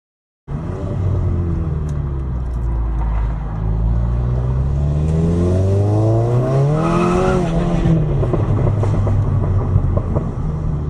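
2017 VW GTI's turbocharged four-cylinder engine running, starting abruptly about half a second in. In the middle its pitch climbs steadily for about three seconds, then drops back.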